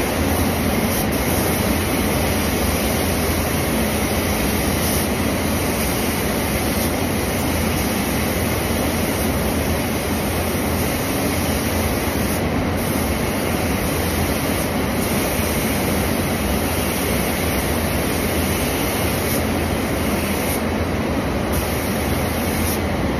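Steady, unbroken rush of air inside an industrial paint spray booth, from the booth's ventilation airflow and a compressed-air spray gun.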